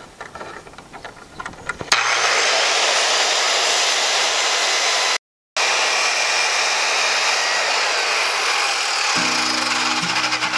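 A few light clicks as a bar clamp is tightened on a board. About two seconds in, a corded Milwaukee circular saw starts ripping the wooden board lengthwise along its edge guide, a loud steady cutting noise that breaks off for a moment near the middle.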